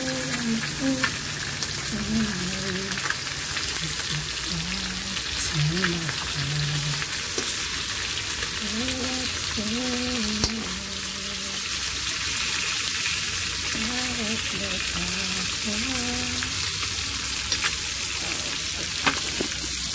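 Chicken wings steadily sizzling as they brown in hot oil in an electric skillet, with a few light clicks.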